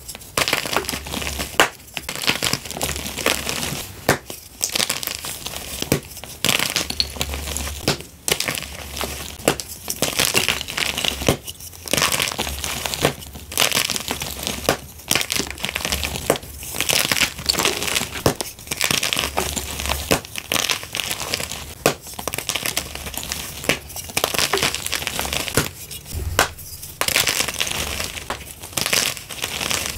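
Blocks of gym chalk snapped and crushed in the hands: an irregular run of crisp snaps and dry crumbling crunches, with a few short pauses.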